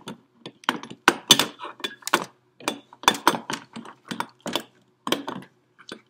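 Metal espresso machine parts being handled and fitted: a run of irregular clicks, knocks and clinks as the portafilter and fittings are pushed against the machine's group head.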